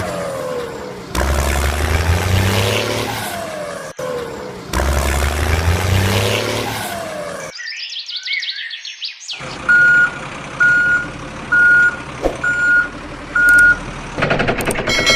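Truck engine sound effect played in repeated loops of about three seconds, each with a falling whine. It is followed by five reversing beeps about a second apart.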